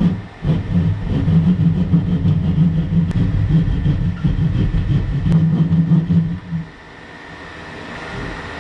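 Loud mechanical running sound with a low, steady hum, like a machine or power tool under load, which stops abruptly about six and a half seconds in.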